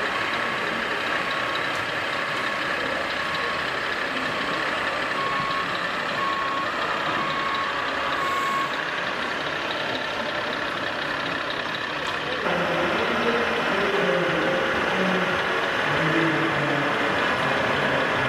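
Reversing beeper of an RC scale model truck's sound module, a short beep about once a second that stops about nine seconds in, over the steady chatter of a crowd in a hall. About twelve seconds in, the background turns louder with more voices.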